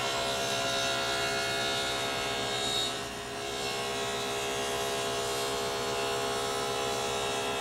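Table saw with a 3/4-inch stacked dado blade running and cutting a deep stop dado slowly through dense wood: a steady whine, dipping briefly in level about three seconds in.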